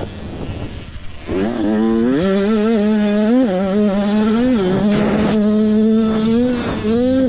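Supermini motocross bike engine at high revs. It eases off briefly near the start, then picks up about a second in and holds a high, steady pitch with several short blips of the throttle.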